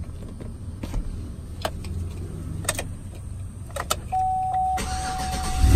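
A few sharp clicks of keys and the ignition switch in a Chevy Silverado, then a steady electronic tone from about four seconds in as the ignition comes on. Near the end the engine is cranked and catches, with a jump to a loud low running sound.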